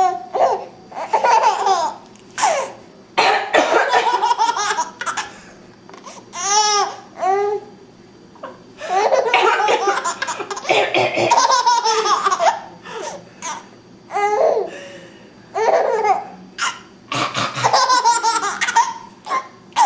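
A baby laughing in repeated bursts, some high-pitched and squealing, set off by a woman's coughing, with coughs heard among the laughs.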